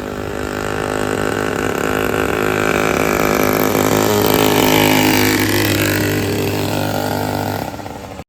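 100cc two-stroke bicycle engine running, getting louder to a peak about five seconds in, then easing off, its pitch falling. The sound cuts off abruptly at the end.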